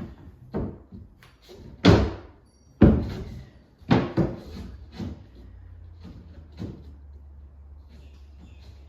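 Solid spotted gum hardwood backboard being knocked and forced into a bookshelf carcass: a run of loud wooden knocks and thumps, the three loudest about two, three and four seconds in, then a few lighter knocks.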